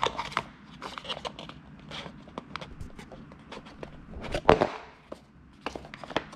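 Cardboard watch box being handled on a wooden table: a run of light taps, clicks and scrapes, with a louder rubbing knock about four and a half seconds in as the box is moved and its lid pulled off.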